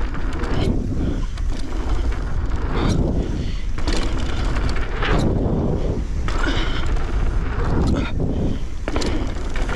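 Wind buffeting the microphone and a mountain bike's tyres rolling over dirt on a run through dirt jumps, with several louder surges along the way.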